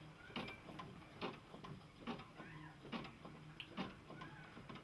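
Home embroidery machine stitching: its needle ticking quickly and a little unevenly, about two to three strokes a second.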